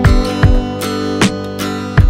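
Background music: a strummed acoustic guitar with a steady beat.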